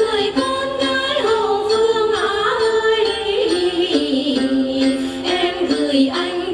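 A woman singing a hát then folk song with a melody that glides and steps, accompanied by the plucked đàn tính, the Tày long-necked gourd lute.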